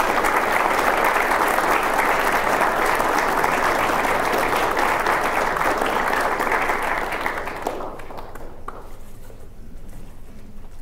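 Audience applauding, loud and steady, then dying away about eight seconds in.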